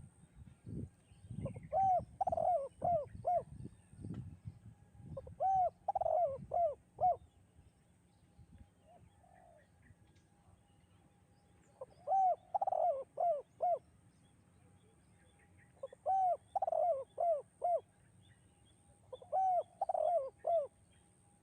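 Spotted dove (tekukur) cooing a 'kuk 2' song five times, each phrase a quick run of four or five rounded coos, with pauses of a few seconds between phrases. Low rumbling noise sits under the first two phrases.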